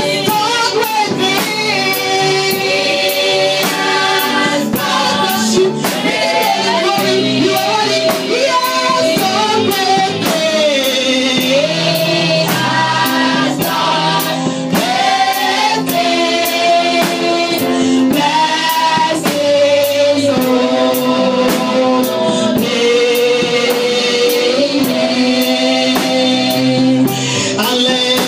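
Gospel praise music: voices singing together over a band, with drums keeping a steady beat.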